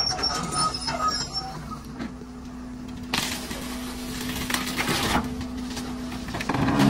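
Caterpillar excavator engine running steadily while its bucket presses down on a Ford pickup's cab, crumpling sheet metal and breaking glass. The crunching is loudest about three to five seconds in and again near the end.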